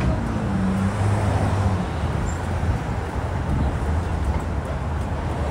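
Busy city street traffic: a steady low rumble of passing vehicles, with an engine's low hum standing out for the first couple of seconds.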